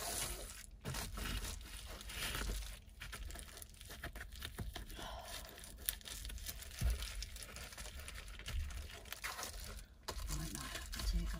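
Reflectix foil-faced bubble insulation crinkling and crackling as it is pressed and molded by hand into a car door's window frame, in irregular rustles throughout.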